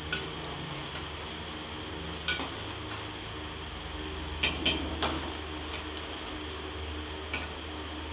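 A metal ladle stirring chicken curry in an aluminium pressure-cooker pot, with scattered clinks and scrapes against the pot's side. Several clinks come close together about halfway through, over a steady low hum and hiss.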